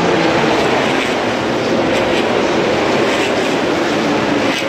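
MotoGP racing motorcycle engines heard as a loud, steady din, with faint engine pitches wavering up and down.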